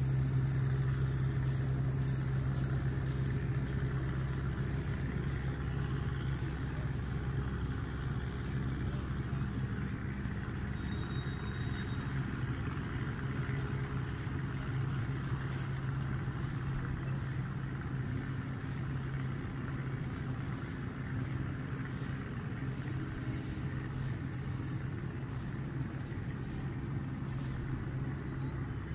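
An engine running steadily at an even speed: a low, unchanging drone.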